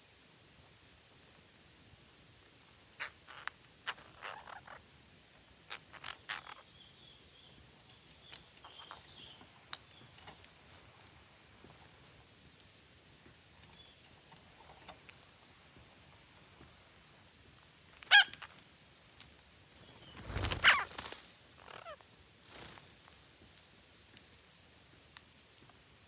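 Red-breasted parakeets giving scattered short calls: a few moderate ones in the first several seconds, then two loud calls about two-thirds of the way through. The last and loudest comes with a low thump.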